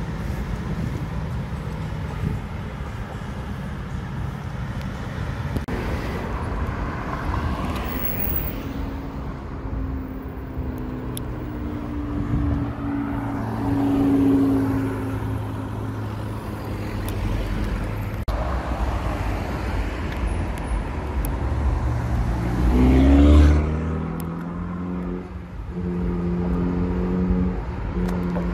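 Cars and supercar engines on a city street. At first there is steady traffic. About halfway through, a Porsche 918 Spyder's engine runs as the car passes slowly and close by; a little later an engine revs up in a quick rising sweep, the loudest moment; near the end a steady engine note holds.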